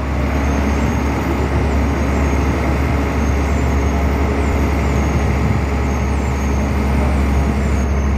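Truck crane's diesel engine running steadily at constant speed, a loud low drone, while it holds an excavator suspended on its hook.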